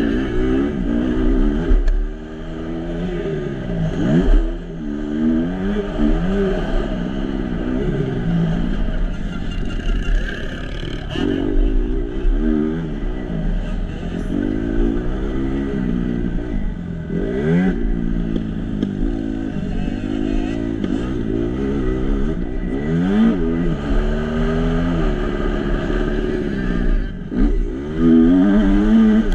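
Kawasaki KX250F four-stroke single-cylinder motocross engine, heard close from the rider's onboard camera, revving up and falling back again and again every second or two as the bike accelerates, shifts and slows around a dirt track.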